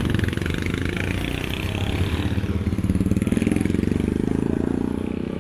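A motorcycle engine running close by on the road as it passes. Its pitch rises around the middle, then the sound fades near the end.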